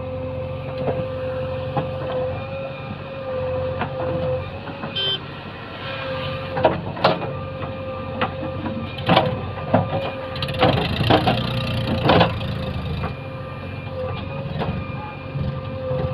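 JCB 3DX backhoe loader's diesel engine running steadily with a held whine, while a run of sharp knocks and clatter comes mostly in the middle, as moram is loaded.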